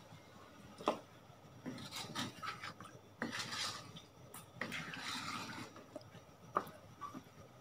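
Wooden spatula stirring chicken curry in a wok, scraping along the pan, with three sharp knocks against its side.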